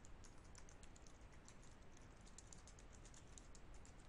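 Faint computer keyboard typing: a quick, irregular run of keystrokes as a line of text is typed.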